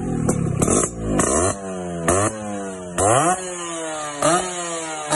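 Two-stroke motorcycle engine revved in short throttle blips, about seven times. Each time the pitch shoots up and then slides back down toward idle.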